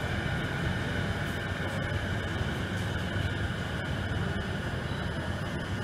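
A stationary E233-series electric commuter train standing at the platform, giving a steady hum with a low rumble underneath and a few constant high tones.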